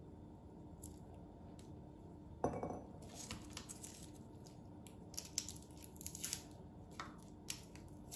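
Close handling noises: a single knock about two and a half seconds in, then a few seconds of light crinkling and clicking.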